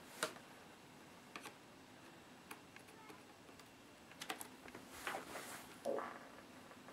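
Scattered small clicks and taps from handling the inside of an open Dell laptop. The sharpest comes about a quarter second in, and a quick cluster follows around four seconds in.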